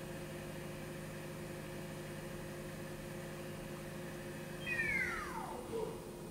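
Right spindle of a Mori Seiki NZ-2000 CNC turning center running steadily at 3,000 RPM with an even hum. About four and a half seconds in, the spindle drive's whine falls steeply in pitch over about a second as the spindle brakes down from speed.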